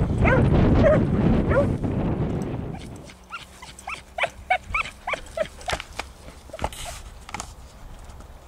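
Hound dog barking and yelping in short high calls during a chase. The first few calls come over loud wind and rustling; after about three seconds it goes quieter and the yelps come quickly, about three a second, for a few seconds.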